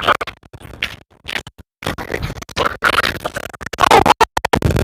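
Music with scratching sounds, choppy and cutting in and out with several brief dropouts to silence.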